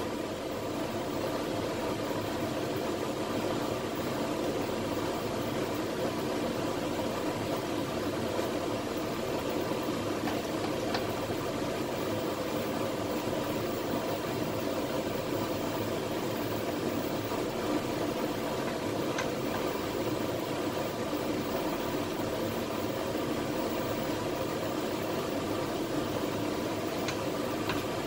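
Steady mechanical hum with hiss, even throughout, with a few faint clicks.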